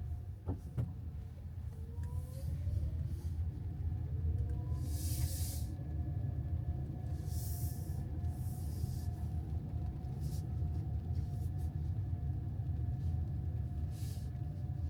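Car driving, heard from inside the cabin: a steady low road and engine rumble, with a few brief hisses rising over it.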